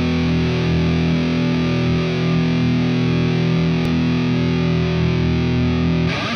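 Intro music: one held, distorted electric-guitar chord that rings steadily and cuts off shortly before the end.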